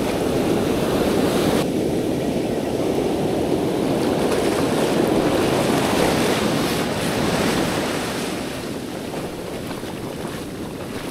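Ocean surf breaking and washing up the beach, a steady rush of waves that eases off about eight seconds in.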